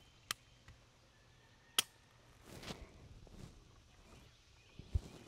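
Two sharp clicks about a second and a half apart: pistol triggers snapping in dry fire on an unloaded gun. Near the end there is a soft low thump.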